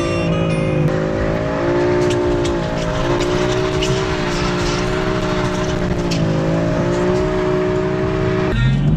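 Car engine running hard at fairly steady revs, its pitch wavering slightly. Near the end the revs drop suddenly at a gear change and climb again.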